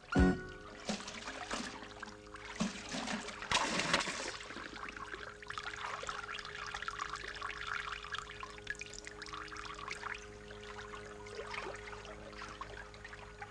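Water splashing and trickling, over a faint steady hum, after a short loud knock right at the start.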